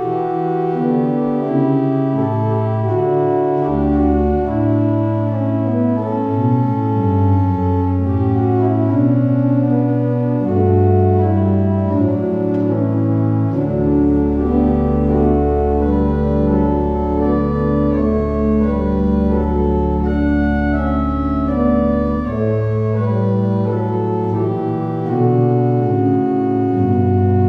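Organ music: slow, sustained chords, with a long held bass note through the middle.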